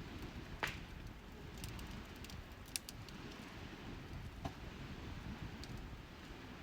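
Wood campfire crackling: scattered sharp pops and snaps over a low steady rumble, the loudest pops coming just over half a second in and a little before the three-second mark.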